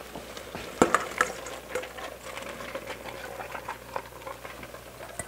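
Metal spoon knocking twice against a steel mixing bowl about a second in as corn is scraped into a pot of thickened pot-pie filling, followed by a soft, steady crackle of the filling bubbling and being stirred.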